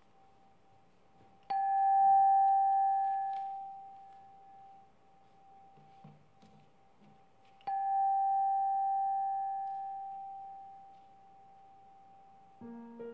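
A bell struck twice, about six seconds apart, to open worship and a time of centering; each strike rings out one clear tone that fades slowly over several seconds.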